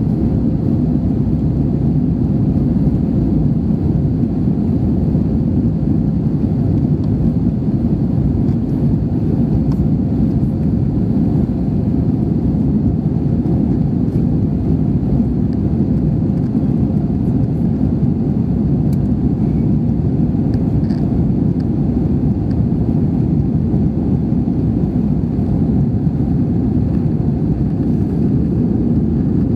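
Jet airliner cabin noise during the climb after takeoff: engines and airflow make a steady low rumble that does not change.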